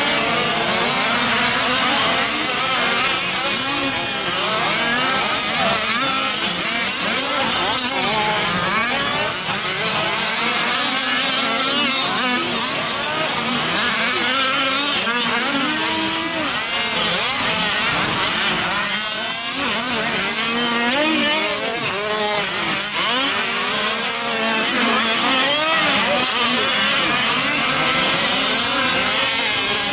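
Several 5th-scale gas RC trucks' small two-stroke engines racing, many at once, each revving up and falling back in overlapping rising and falling pitches.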